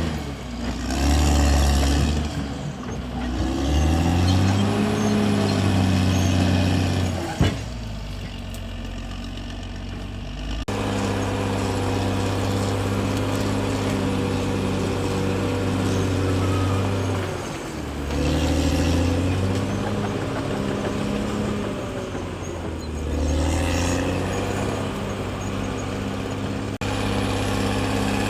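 CAT D6R XL bulldozer's diesel engine working under load, its pitch rising and falling several times as it labours and eases off, with a steadier stretch in the middle. A single sharp knock about seven seconds in.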